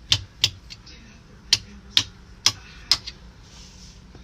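New switches on a boat's switch panel being flipped: six sharp clicks, two close together at the start, then four about half a second apart, stopping about three seconds in.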